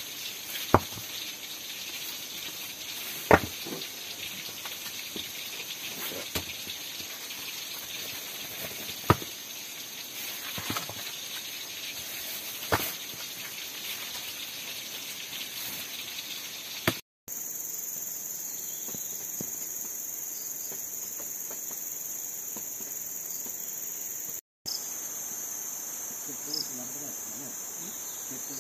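Steady high-pitched chorus of jungle insects, with several sharp knocks in the first half that stand out above it. The sound drops out twice for a moment, and the insects' pitch pattern changes after the first break.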